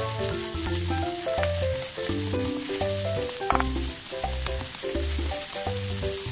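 Chopped chicken ham and rice sizzling in butter in a nonstick frying pan, stirred with a wooden spatula that now and then clicks against the pan, under background music with a steady bass line.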